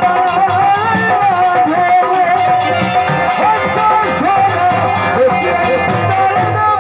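Live Punjabi folk music over a PA: a man sings a wavering, ornamented melody into the microphone over a steady dhol drum beat.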